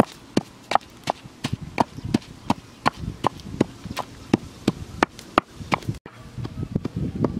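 Pestle pounding ingredients in a mortar: sharp, even knocks at about three a second. The pounding stops abruptly about six seconds in.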